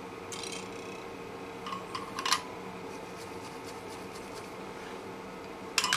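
Small metal clicks and rattles of needle-nose pliers working wires loose in an electric guitar's control cavity: a short cluster about two seconds in and another near the end. Under them, the steady hum of a fume-extraction fan.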